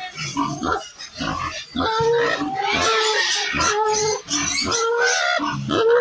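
Pigs squealing and grunting in a run of short, repeated calls.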